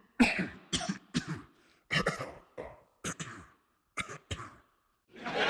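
A person coughing repeatedly: about a dozen short, sharp coughs at an uneven pace. A steady hissing noise starts suddenly near the end.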